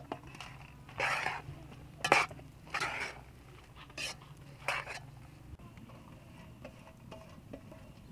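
A metal spoon stirring a thick mash in a large metal cooking pot, scraping and clinking against the pot's sides about five times in the first five seconds, then only faint small clicks.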